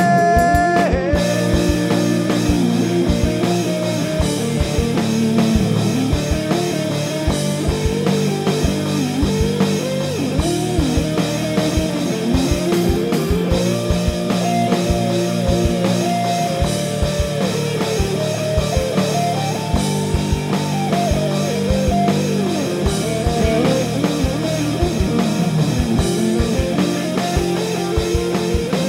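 Rock band playing an instrumental break without vocals: a gliding guitar lead line over a steady drum-kit beat.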